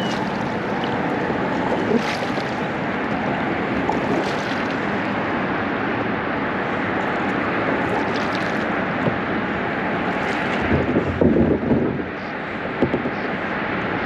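Steady rush of river current lapping and splashing around a kayak's hull as it moves through choppy water, with a brief buffeting burst about eleven seconds in.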